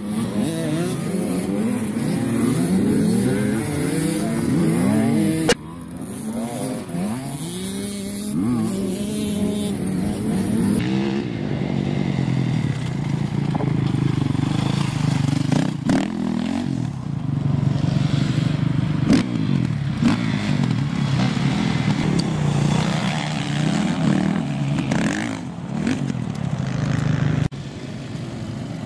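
Dirt-bike engines revving up and down as the bikes ride. The sound changes abruptly about five and eleven seconds in, where the clips cut.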